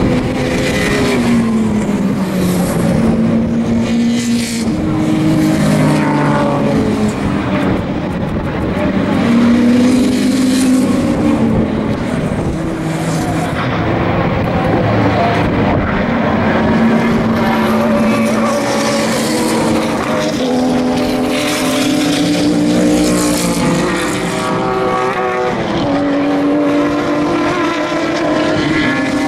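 Several sports and GT race car engines running hard at racing speed, their overlapping notes rising and falling in pitch as the cars accelerate, shift, and pass.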